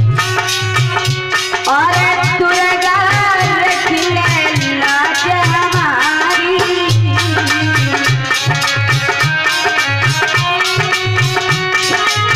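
Live Hindu devotional music: a harmonium carrying the melody over a hand drum playing a steady beat, with small cymbals keeping time. The melody slides between notes at times.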